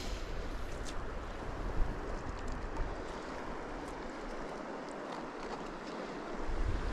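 Steady rushing of a flowing creek, with wind buffeting the microphone as a low rumble that eases off about four seconds in.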